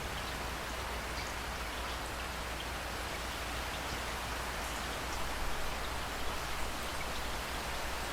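Steady rain falling on surfaces: an even hiss with scattered individual drops ticking, over a low steady rumble.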